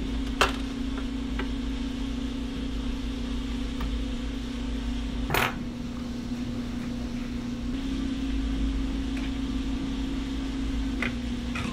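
Small metallic clicks and clinks of a screwdriver, screws and a steel bracket being taken off a mini PC's metal chassis, a few scattered ones with a louder clink about five seconds in, over a steady low hum.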